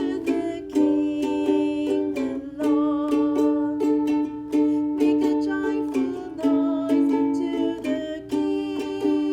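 A strummed string instrument playing chords in a steady rhythm, about two strums a second.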